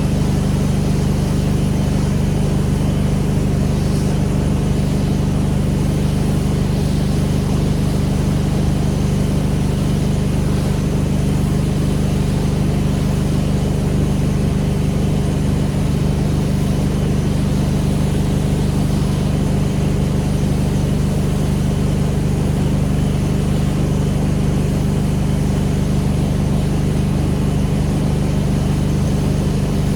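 Pressure washer's engine running at a steady speed, with an even hiss over it.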